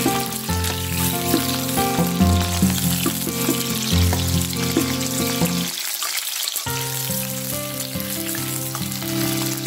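Pointed gourd (parwal) pieces sizzling as they shallow-fry in hot mustard oil in a steel kadai, with a steady hiss. Background music plays over it and drops out for about a second around six seconds in while the sizzling carries on.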